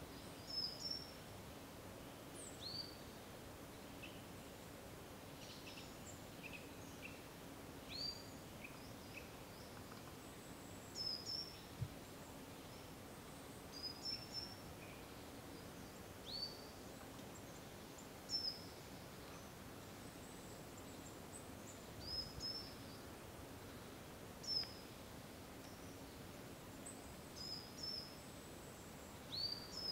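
Quiet woodland ambience: small birds calling with short high chirps and quick downward-flicking notes every second or two, over a faint steady low hum.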